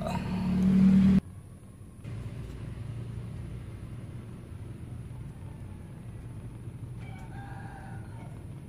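A loud low hum cuts off abruptly about a second in and gives way to a steady low rumble. Near the end a rooster crows faintly in the distance.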